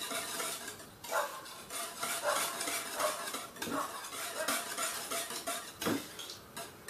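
A whisk stirring thick béchamel sauce in a metal pot, in quick irregular scraping strokes, with a sharper knock of the utensil on the pot about six seconds in. Eggs are being beaten in fast so they don't set in the sauce.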